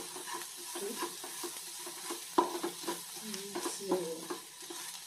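Wooden spatula stirring and scraping sautéing onions and chilli powder around a nonstick wok, with the light sizzle of frying in oil underneath. There are many small irregular scrapes and knocks, and one sharper knock about two and a half seconds in.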